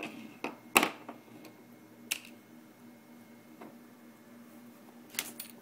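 A handful of small, sharp clicks and taps at irregular moments, from handling the iPod Touch's parts and small tools during reassembly. The loudest click comes under a second in, and two more come close together near the end.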